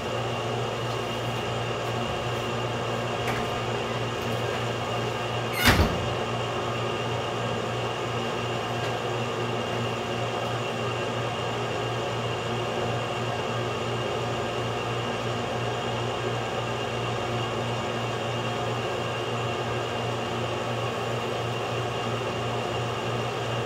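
Steady mechanical hum in a small room, with one sharp knock about six seconds in.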